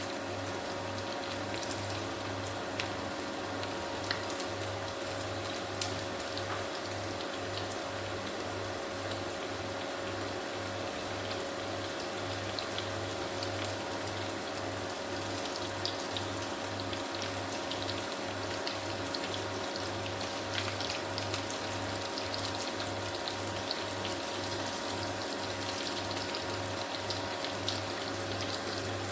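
Samosas deep-frying in a pan of hot oil: a steady sizzle with scattered small crackles, over a low steady hum.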